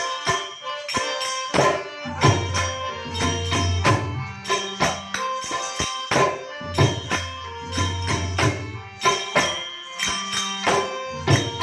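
Gujarati santvani devotional folk music: steady held notes over a regular beat of jingling percussion strokes.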